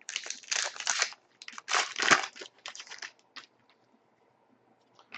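Crinkling and tearing of a trading-card pack's wrapper as it is opened by hand, in uneven bursts that are loudest about two seconds in and stop after about three and a half seconds.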